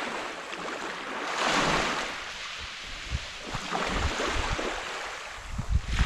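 Small sea waves breaking and washing up the beach, with a louder surge of surf about a second and a half in. Wind buffets the microphone near the end.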